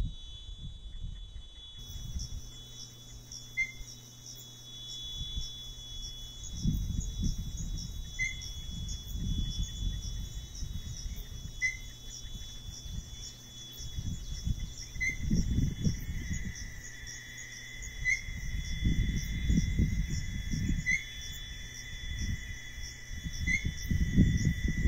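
Small-billed tinamou (inhambu-chororó) giving short rising whistles, one every few seconds and coming closer together toward the end. Behind it is a steady high insect buzz, with gusts of wind rumbling on the microphone.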